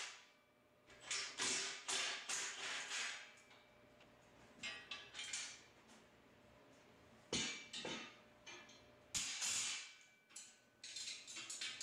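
Scattered light clanks and rattles of metal parts being handled, including a perforated metal plate carried and set down on a concrete floor.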